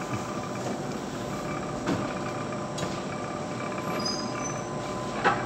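Laboratory stirrer motor running steadily with a hum while stirring a caffeine sample in water. A few short clicks sound over it, the sharpest near the end.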